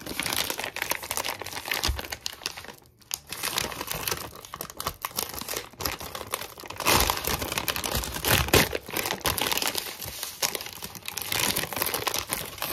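Plastic cookie dough bag crinkling in the hands as it is handled and pulled open, in irregular rustling bursts with a brief lull about three seconds in.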